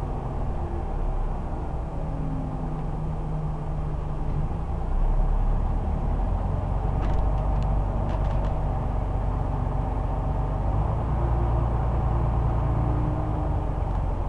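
Scania OmniCity bus's diesel engine and drivetrain running as the bus drives, heard from inside the passenger saloon as a steady low rumble that shifts in pitch and grows a little louder about a third of the way in. A few short light rattles or clicks come about halfway through.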